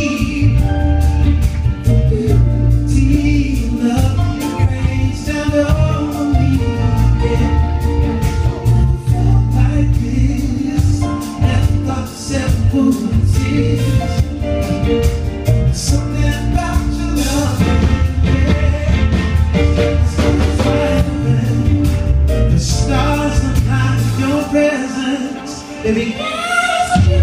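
Live band music with keyboards over a heavy bass, and a man singing lead into a microphone. The low bass drops away briefly near the end while the voice carries on.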